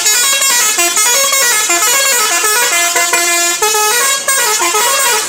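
Bus 'telolet' multi-tone musical horn playing a long, loud melody of quick stepped notes without a break.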